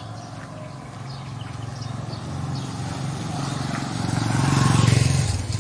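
A small motorbike passing close by, its engine growing louder to a peak about four and a half seconds in, then fading quickly.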